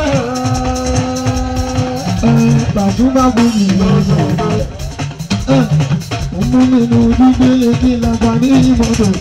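Live fuji music played loud: a male singer sings into a microphone in long held notes over drums, rattles and guitar, the held notes coming at the start and again in the second half.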